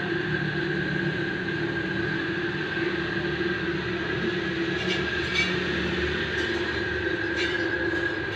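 New Holland tractor's diesel engine running steadily at idle: an even low rumble with a constant whine over it and a few faint clicks.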